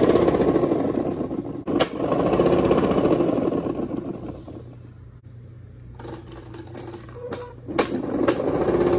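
Printer-salvaged DC motor spinning the launcher's 3D-printed anvil on PLA bushings: a loud whirring rattle that eases off for a couple of seconds midway and then builds again. Sharp knocks as balls are struck and launched come about two seconds in and a few times near the end.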